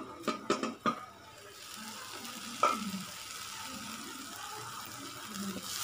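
A few clinks of a metal pan lid being lifted off the pan, then the masala of ground shallots and spices sizzling steadily in oil, with one knock midway. The masala is well sautéed, with the oil separating out.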